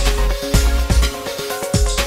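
Background music with a steady beat and deep bass.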